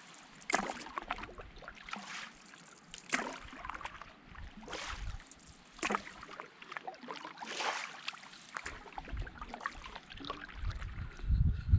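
Canoe paddles stroking through water, a swishing splash every second or two, over a faint wash of water along the hull. A few low thumps come near the end.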